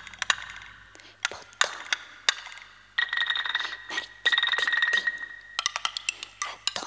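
Small hand percussion and noisemakers: scattered sharp clicks and clinks, then two spells of a fast rattling buzz carrying a high steady tone from about three seconds in, followed by a run of quick clicks.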